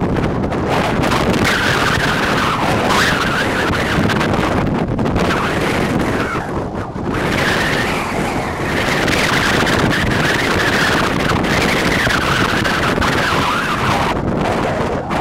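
Wind buffeting the camera microphone: a loud, continuous rush and rumble that swells and eases.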